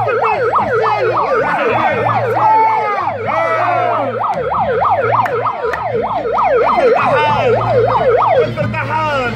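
Handheld megaphone's built-in siren in yelp mode: a loud electronic wail sweeping up and down quickly, about four times a second, that stops near the end.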